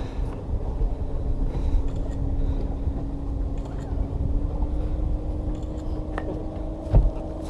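Boat motor running steadily, its hum rising a little in pitch about halfway through. A single knock near the end.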